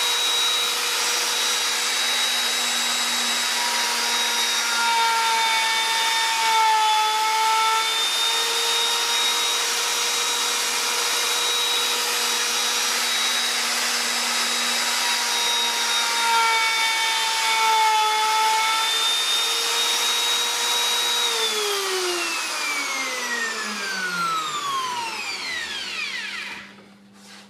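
Bosch plunge router running at high speed with a steady whine while a straight bit is pushed across a board in a sled jig to surface-plane it; its pitch dips briefly twice. Near the end it is switched off and winds down with a long falling whine.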